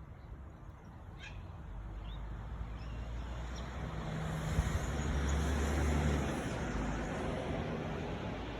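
A road vehicle passing by, its noise swelling to a peak about halfway through and then fading away. A few short bird chirps sound about a second in.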